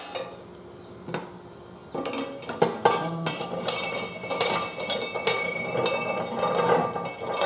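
Steel parts of a Harbor Freight manual tire changer clinking and clanking as the star-shaped hold-down cone is fitted onto the center post over a steel wheel. A few sharp clinks at first, then a dense run of ringing metal-on-metal clinks from about two seconds in.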